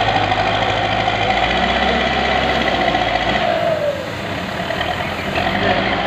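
Bull HD76 backhoe loader's diesel engine and hydraulics running under load as the front loader bucket is worked at a gravel pile. A steady whining note falls away about three and a half seconds in, the sound eases briefly, then picks up again near the end.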